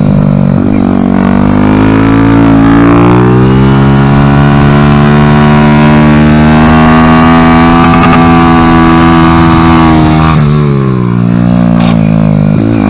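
Kawasaki Z125's single-cylinder engine pulling hard on track, its pitch climbing over the first few seconds and then holding high. About ten seconds in the revs drop briefly for a corner, then climb again.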